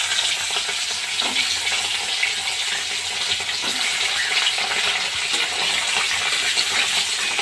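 Pieces of steamed egg frying in hot oil in a kadai: a steady, loud sizzle with scattered small crackles.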